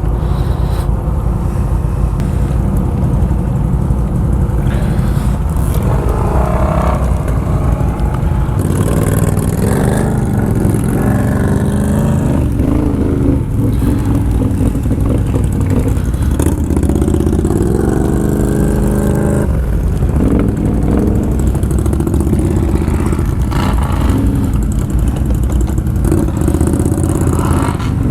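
ATV engine running close up, its revs rising and falling several times, with a clear rise and fall in pitch about two thirds of the way in.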